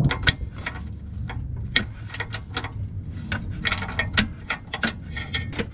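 Hand socket ratchet clicking in short, irregular runs, about four clicks a second, as it works a bolt on the exhaust bracket under the car.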